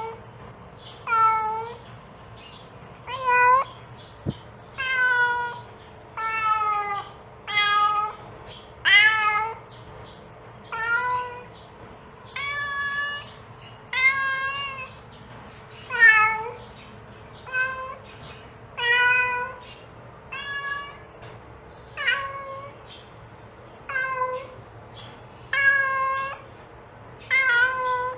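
A mother cat meowing over and over, calling her kittens: about seventeen short calls, one every one and a half to two seconds.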